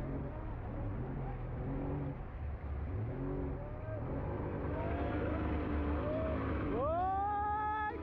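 Motor boat engine running steadily. Near the end its pitch rises sharply as the throttle opens and holds for about a second, then cuts off.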